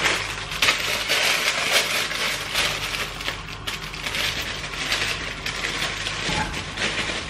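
Plastic bag of sliced mushrooms crinkling and rustling as it is handled and tipped out into a glass bowl, a dense irregular crackle that starts abruptly and fades out near the end.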